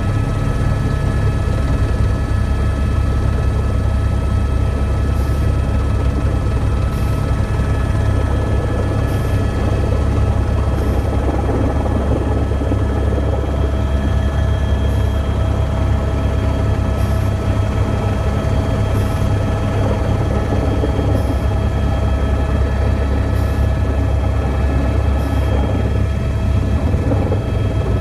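Helicopter in flight heard from inside the cabin: a steady, loud low rumble with constant high whining tones over it.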